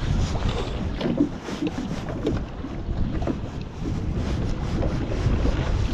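Wind buffeting the microphone with a steady low rumble, while small choppy waves lap and slap against the hull of a small fishing boat in irregular splashes.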